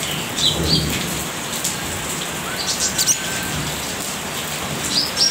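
Caged sogok ontong (spiderhunter) giving short, high chirps in three brief bouts over a steady background hiss. These are the first tentative chirps of a bird starting to call.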